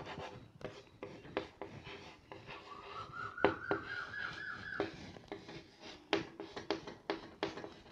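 Chalk writing on a blackboard: a run of short taps and scratchy strokes as letters are written. A faint high tone rises and holds for about two seconds midway.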